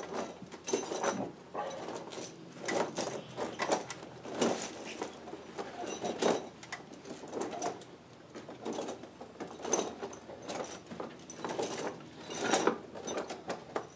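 Cross-link tire chains clinking and jangling as they are handled and draped over a tractor's rear tire, in irregular clusters of metallic rattles.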